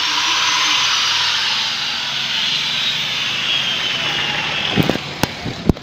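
Handheld power tool working on steel: a steady grinding hiss under a high motor whine whose pitch slowly falls, followed by several sharp metal knocks about five seconds in.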